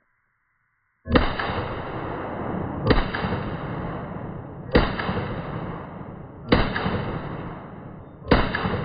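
AR-15 firing 5.56 rounds in slow, deliberate fire: five shots about two seconds apart, starting about a second in, with a long echo trailing each shot.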